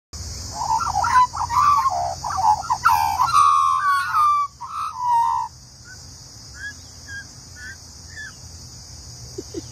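Australian magpies carolling, an adult and a juvenile together: loud warbling, gliding notes for about five seconds that stop suddenly, then a few faint short chirps. The young bird is still learning its song.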